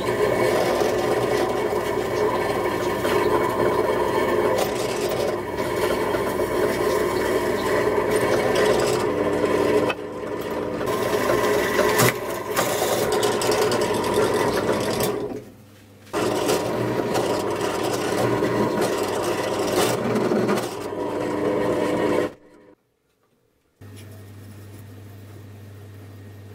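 Drill press running, its twist bit cutting through a thin copper strip: a steady motor whine with the scrape of the cutting. It dips briefly a few times and cuts off near the end, leaving only a faint low hum.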